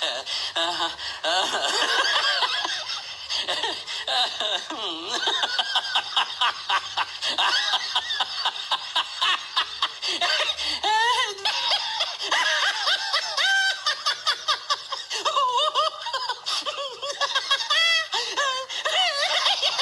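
Dubbed laughter sound effect: a person laughing hysterically in long, rapid runs of high-pitched 'ha-ha-ha'.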